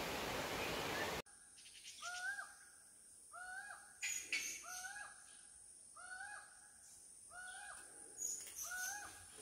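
A steady rushing hiss that cuts off about a second in, then a bird calling: a short note that rises and levels off, repeated about once a second, over a faint steady high whine.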